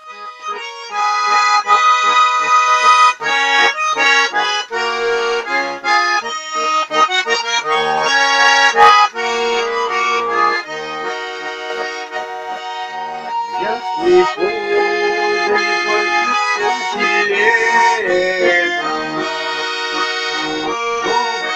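Russian garmon (two-row button accordion) playing a folk tune on its own, melody over pumped bass chords.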